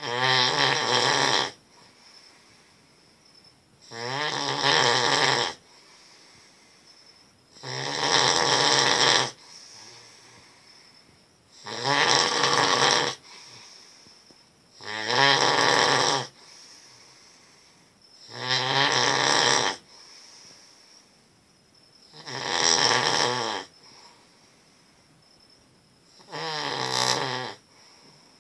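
A man snoring heavily in his sleep, one long rasping snore roughly every four seconds, eight snores in a row.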